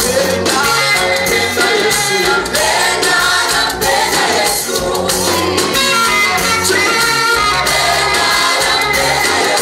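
Choir singing an upbeat Swahili gospel song with a band and a steady danceable beat, tambourine-like percussion and bass.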